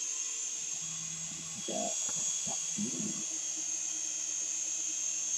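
Small indoor remote-control toy helicopter in flight: its electric motor and rotors make a steady high-pitched whine over a low hum.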